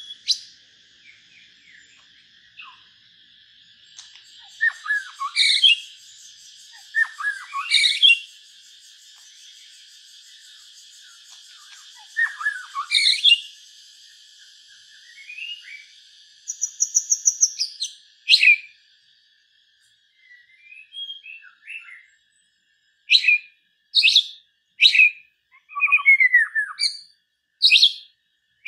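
Songbird calls: sharp high chirps and short falling whistles come at irregular intervals, with a quick trill about two-thirds of the way through. A steady high hum lies under the first half. Near the end there is a run of loud chirps about one a second.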